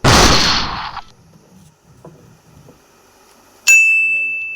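Comedy sound effects: a loud noisy burst lasting about a second, then, near the end, a sharp metallic strike that rings on as one clear high bell-like ding, slowly fading.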